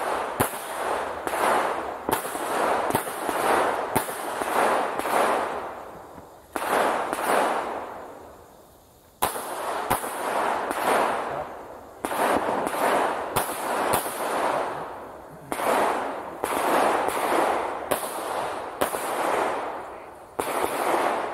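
Pistol shots fired in strings of several, roughly one a second, each with a ringing echo, with short pauses between the strings.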